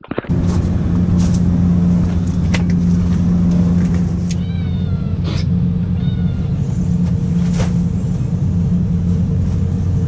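A cat meowing twice, short calls about four and a half and six seconds in, over a steady low engine drone that is the loudest sound throughout. A few sharp clicks are heard as well.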